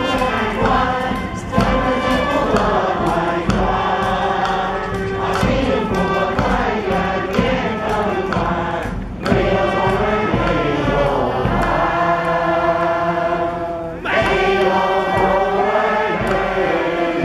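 A large group of voices singing together like a choir, holding long notes, with short pauses between phrases about nine and fourteen seconds in.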